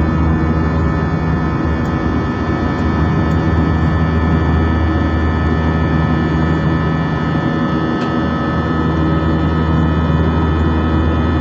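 Steady drone of a passenger jet in cruise flight, heard inside the cabin: engine and air noise with a low hum and a few constant tones, unchanging throughout.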